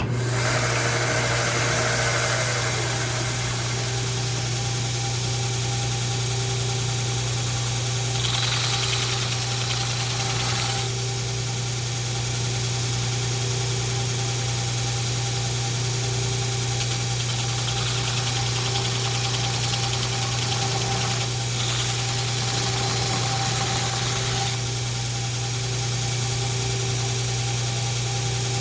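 Belt grinder running with a worn 80-grit belt, grinding down the steel edge of an antique cleaver to remove a rust pit: a steady motor hum with a hiss of steel on the abrasive that swells at times, about eight seconds in and again from about eighteen to twenty-four seconds.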